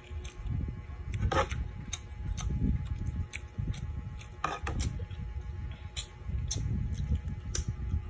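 Close-miked eating sounds: chewing and mouth noises, with irregular sharp clicks of a utensil against the dishes.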